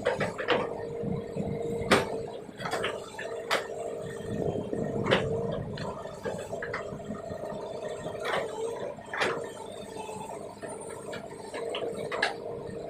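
Hydraulic excavator digging a ditch: the engine runs with a steady hum under repeated sharp knocks and clanks from the bucket and arm, with water and wet earth splashing.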